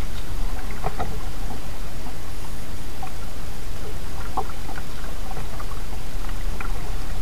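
Kayak paddle strokes in the water, a few light splashes and drips, over a steady low rumble.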